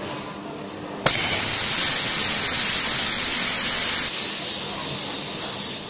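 High-frequency PP binder welding machine running a weld cycle: a sudden, loud, high-pitched whistling hiss starts about a second in and holds steady for about three seconds, then drops to a softer hiss.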